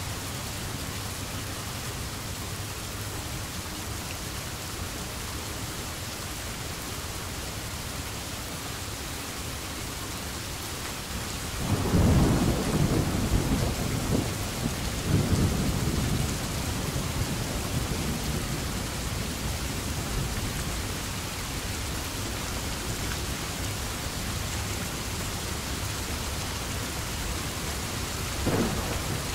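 Steady rain falling, with a roll of thunder about twelve seconds in that swells twice and fades slowly over several seconds. A brief second rumble of thunder comes near the end.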